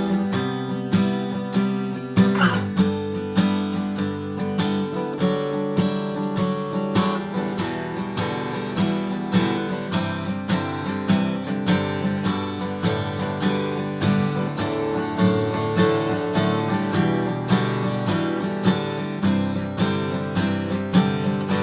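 Martin custom-shop Style 28 acoustic guitar, with a bearclaw Sitka spruce top and Madagascar rosewood back and sides, being played: a continuous run of picked notes and chords, several a second, with notes ringing on.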